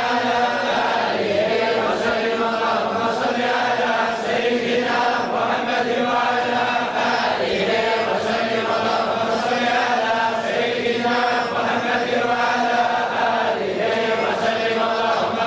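A group of men chanting together in unison, a slow, steady melodic religious recitation.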